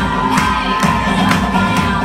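Dance music with a steady percussive beat about twice a second, with crowd noise beneath it.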